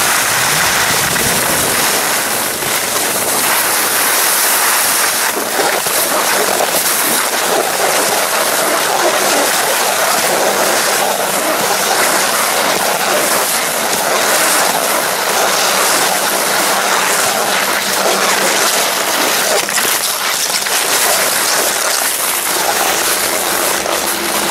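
Skis sliding and scraping over packed snow, with wind rushing over the microphone during a downhill run, a loud and steady noise. Near the end a steady low hum joins in.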